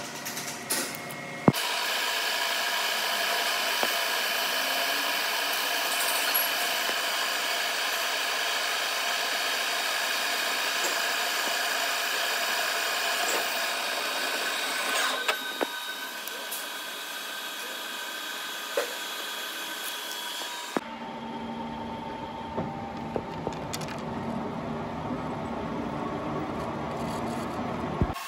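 Metal lathe cutting a C45 steel workpiece under coolant: a steady machining noise carrying several high steady tones. It starts abruptly with a sharp click about a second and a half in, and about two-thirds of the way through it changes suddenly to a duller sound with more low rumble.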